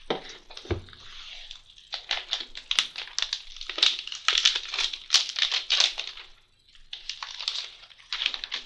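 iPad box packaging being handled: irregular rustling and crinkling in quick flurries, with a short lull about six and a half seconds in.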